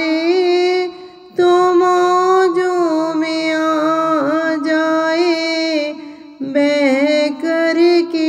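A woman singing a naat in long held notes with a slight waver, pausing briefly about a second in and again near six seconds.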